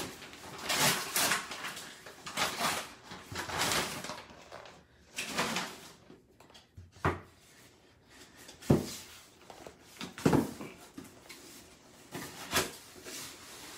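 Plastic bag and bubble wrap rustling and crinkling as an item is unwrapped, followed by four sharp knocks as a small cardboard box is handled on a table and its flap pulled open.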